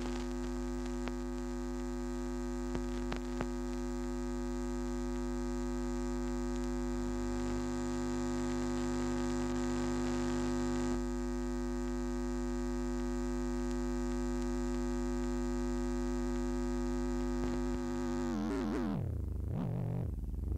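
Steady electrical hum on an old home-video soundtrack: a dense stack of unchanging buzzing tones. About two seconds before the end the tones bend and swoop up and down in pitch as the recording runs out.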